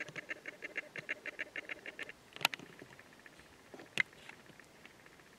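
A rapid series of short animal calls, about six or seven a second, fading after about two seconds. Two sharp knocks from the camcorder being handled on its tripod, about two and a half and four seconds in.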